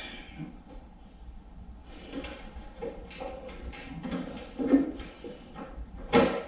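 Scattered knocks and clatters of tools and metal parts being handled and set down, with the loudest knocks a little before the end and just before it.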